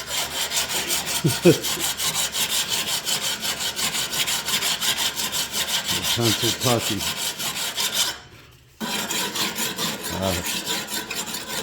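Oiled coarse sharpening stone rubbed back and forth along the steel edge of a lawnmower blade in quick, even strokes, about four or five a second. The strokes stop briefly about eight seconds in, then start again.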